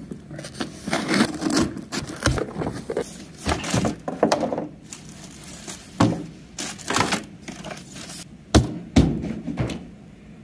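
Cardboard box being unpacked by hand: packing tape cut, cardboard flaps and a moulded pulp-fibre insert handled, and plastic-bagged parts set on a table. It is a busy run of thunks, scrapes and plastic crinkling.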